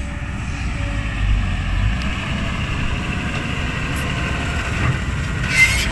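Heavy diesel engines running: a fully loaded Mitsubishi Fuso ten-wheel dump truck pulling away beside a working Kobelco SK200 excavator. The rumble is steady, with a short hiss near the end.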